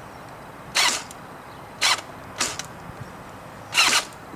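DPMS Panther Arms M4 airsoft electric gun firing four single shots at uneven intervals, each a short, sharp mechanical shot sound.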